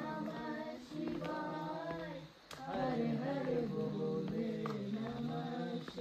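Background music: a song with a high singing voice over sustained instrumental tones, dropping away briefly about two seconds in.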